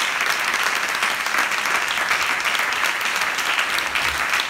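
Theatre audience applauding steadily at the curtain call: many hands clapping at once in a dense, even wash of claps.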